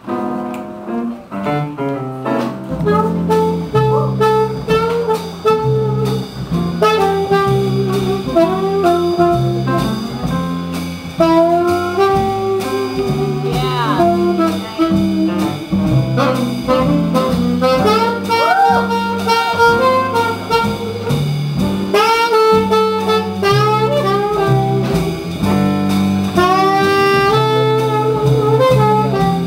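Slow swing jazz with a saxophone playing the melody over a stepping bass line.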